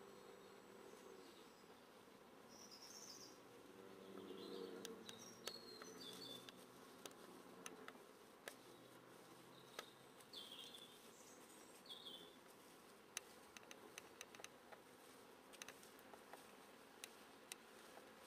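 Faint night ambience: a flying insect buzzes for a few seconds about four seconds in, short high chirps sound every second or two, and light sharp ticks cluster in the second half.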